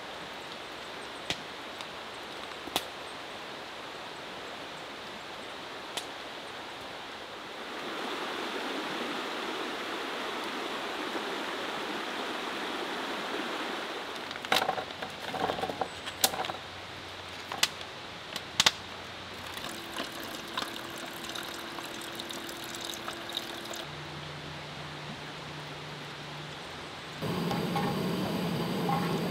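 Steady rushing water, louder from about eight seconds in, with scattered sharp clicks and a few knocks in the middle. Near the end a louder steady hiss sets in suddenly.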